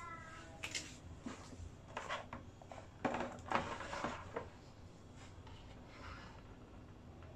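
Small knocks, clicks and rubbing from handling wires, battery and tools while soldering, with a cluster of clatter around the middle.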